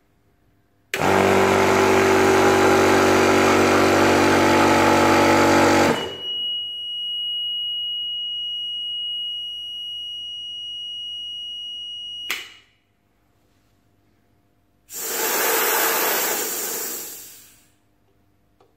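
A 300-bar high-pressure air compressor starts about a second in and runs steadily for about five seconds, then cuts out on its own on reaching its set pressure. A steady high alarm beep follows for about six seconds and stops with a click. A few seconds later air hisses out as the pressure is bled off, fading away.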